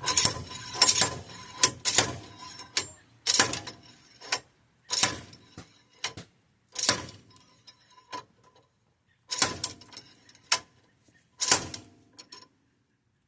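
Hammer blows on steel, about one a second, some in quick pairs, each with a short metallic ring: striking a wheel bearing puller and hub to free a seized, rusted front wheel bearing.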